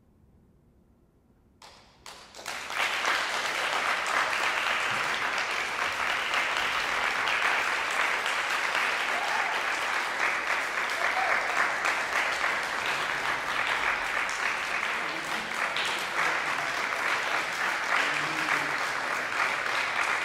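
Near silence, then about two seconds in an audience breaks into applause, which swells within a second into steady, dense clapping.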